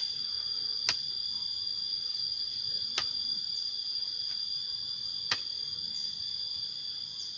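A hoe striking and digging into soil three times, about two seconds apart, over a steady high-pitched insect drone.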